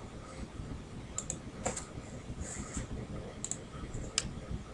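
A computer mouse clicking, a handful of short sharp clicks, several in quick pairs, over a low room hum.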